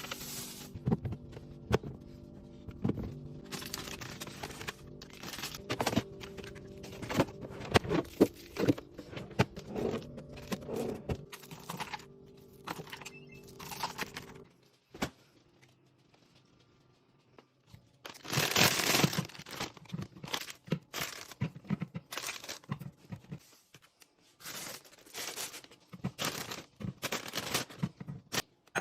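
Packaging and containers being handled while refilling a fridge and kitchen: plastic wrappers crinkling and tearing, with items and containers set down in clicks and knocks. A soft music bed plays under the first half and stops about halfway through.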